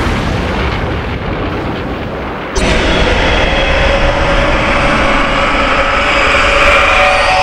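A loud explosive rumble, then about two and a half seconds in a monster roar starts: a long, loud kaiju roar held at a steady pitch.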